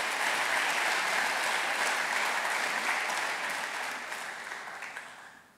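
Audience applauding steadily in a hall, fading away near the end.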